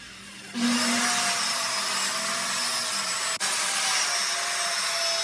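Circular saw cutting through a sheet of plywood: the saw starts up about half a second in and runs steadily through the cut, with a brief dropout about three and a half seconds in.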